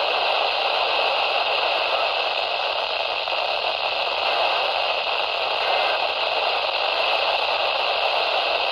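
Steady radio static hiss from a weather radio receiver, an even rushing noise with no voice or tone in it: no broadcast signal is coming through.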